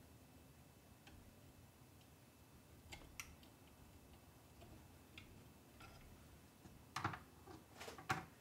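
Faint, scattered clicks and taps of a small metal tool picking at the hot-glued plastic fan connectors on a 3D printer's extruder. A sharper pair of clicks comes about three seconds in, and a cluster of louder clicks near the end.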